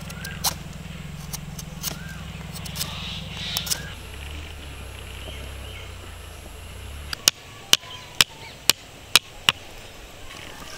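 Kitchen knife working a green bamboo stick: scattered sharp clicks and scrapes, then a run of about seven sharp knocks half a second apart. A low steady hum stops about seven seconds in, and birds chirp faintly.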